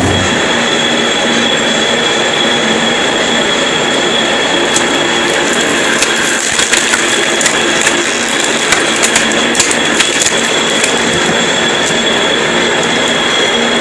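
A lathe runs steadily with a high whine while splitting a log of firewood. From about five to eleven seconds in, the wood gives a run of sharp cracks and snaps as it splits.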